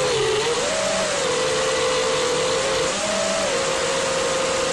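FPV quadcopter's brushless motors and propellers whining, heard from its onboard camera: the pitch rises and falls with the throttle, briefly higher about a second in and again around three seconds, over a steady rushing hiss of air.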